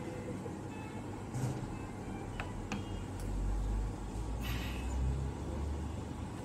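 GE CARESCAPE R860 ventilator cycling volume-controlled breaths into a test lung: short soft hisses of gas about a second and a half in and again past four seconds, over a steady hum. A couple of faint clicks and a low rumble swelling in the middle.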